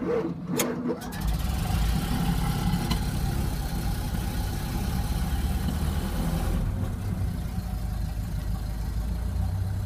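1931 Ford Model A's four-cylinder flathead engine on a cold start with the choke pulled. The starter turns it over briefly and it catches within about a second, then runs steadily. About six and a half seconds in the engine note drops and settles.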